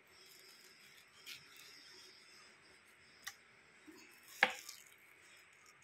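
A knife paring the soft flesh of an overripe mango held in the hand: faint wet scraping with a few sharp clicks from the blade, the loudest about four and a half seconds in.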